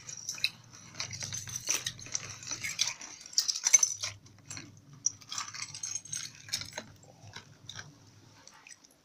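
Metal necklace chains clinking and jangling against each other and against a plate while being rinsed in water, in irregular small clicks that are busiest about three to four seconds in and thin out near the end.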